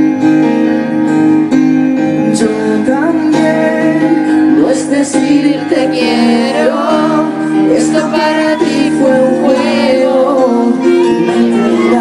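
Live acoustic band playing: guitar chords held steadily, with a singing voice coming in about two and a half seconds in and carrying on over them.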